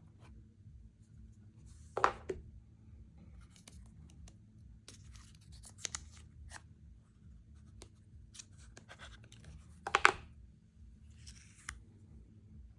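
Hands handling a new phone's box and packaging: scattered scratches, rustles and small clicks, with two louder sharp knocks about two seconds in and near ten seconds.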